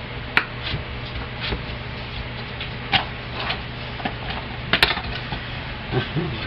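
A kitchen knife knocking on a cutting board as raw potatoes are sliced into fries: a few irregular sharp clicks, the loudest about five seconds in.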